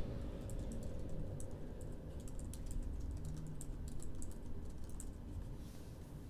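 Typing on a computer keyboard: quick, irregular key clicks that stop about five and a half seconds in, over a low steady hum.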